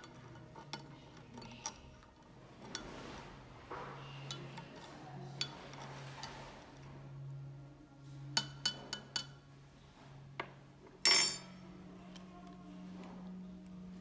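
Metal teaspoon clinking against a porcelain teacup while stirring tea, with a quick run of taps about eight seconds in. A louder ringing clink about eleven seconds in as the spoon is set down.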